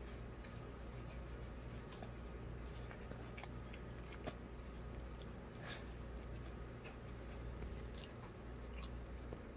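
A 15½-year-old greyhound licking and chewing the last crumbs off a paper plate: scattered small clicks and wet smacks, irregular, over a steady low hum.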